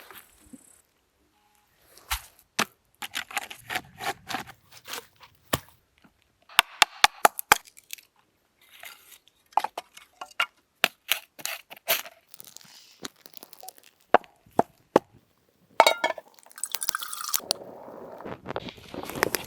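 Wood crunching and cracking: an irregular series of sharp cracks and crunches in clusters, with short quiet gaps between.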